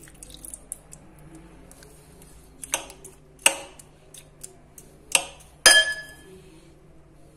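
A spoon knocking against a ribbed glass bowl: four sharp clinks, the last one ringing briefly, with a few faint ticks before them.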